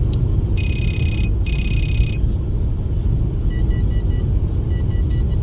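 Phone's incoming-call alert heard over the steady road rumble of a moving car: two electronic tones of under a second each, about half a second in, then two quick runs of short beeps in the second half.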